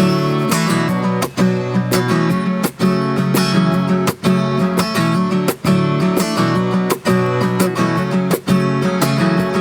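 Acoustic guitar strummed in a steady rhythm, a strong stroke about every three-quarters of a second, playing a song's instrumental intro before the singing starts.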